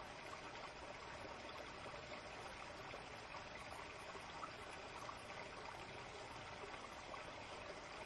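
Small, shallow forest stream flowing and trickling steadily over rocks, a faint even rush of water.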